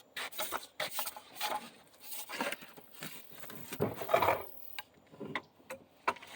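Irregular rubbing, scraping and knocking of a serrated-knife weed cutter on a longtail boat motor being worked back and forth. The loudest cluster comes a little past the middle.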